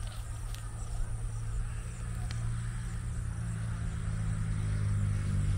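Crickets trilling at nightfall over a steady low motor hum that grows louder near the end.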